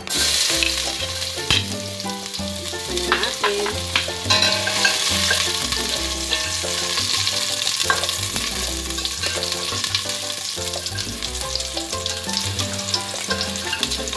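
Minced garlic frying in hot cooking oil in a stainless steel pot, a dense sizzle that starts suddenly as the garlic hits the oil. A spatula stirs it, with occasional clicks against the pot.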